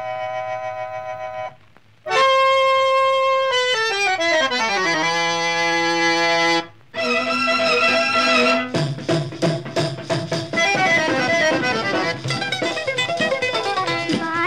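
Instrumental introduction of an old Hindi film song. Sustained notes give way after a brief pause to a held accordion chord and a stepwise descending accordion run. After another short break, a rhythmic ensemble with percussion comes in about nine seconds in.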